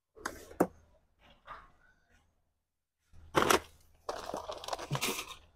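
Knocks and clatter of store goods, a Pine-Sol bottle among them, being picked up and handled. There are a few light knocks in the first second and a half, a louder clatter about three and a half seconds in, then a second or so of rustling and clatter, with abrupt cuts to silence in between.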